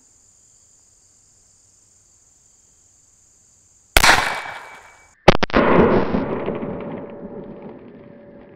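.22 pistol shots firing a golf ball from a barrel-mounted launcher: two sharp bangs about a second and a half apart, the second trailing off in a long echo.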